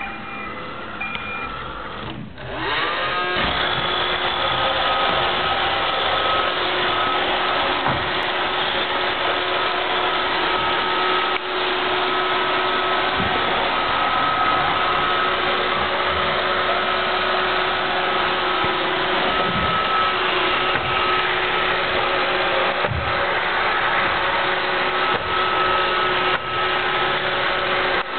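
An iRobot robot vacuum gives a couple of short beeps, then its motors spin up with a brief rising whine about two and a half seconds in. After that it runs with a steady hum, and a few faint knocks come through.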